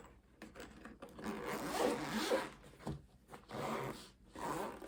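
Zipper on a vlogger kit's carry case being pulled open in about three scratchy runs with short pauses between them.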